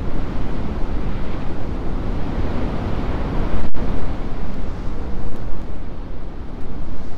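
Heavy ocean surf breaking against rocky headland shores, a continuous deep rumble of crashing water with its loudest surge about halfway through. Wind buffets the microphone.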